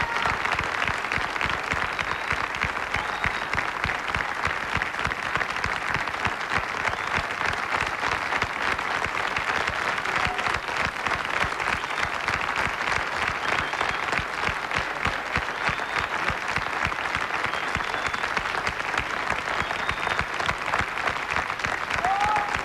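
Studio audience applauding: many people clapping steadily, the applause holding at an even level without letting up.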